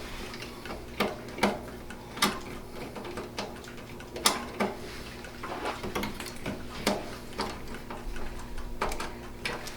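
Irregular small metal clicks and taps, about one or two a second, as a magnetic-tip screwdriver works motherboard screws into the case standoffs.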